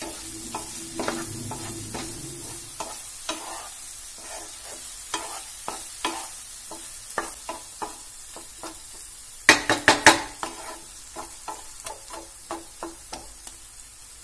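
Spatula stirring okra masala in a nonstick frying pan, with short scrapes and clicks against the pan over a faint sizzle. About two-thirds of the way through, a quick run of three or four louder knocks.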